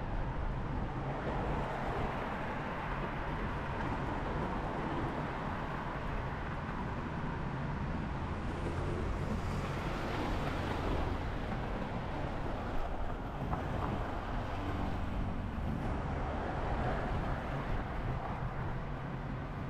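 A vehicle running steadily: a continuous low engine rumble under a broad hiss of motion and air.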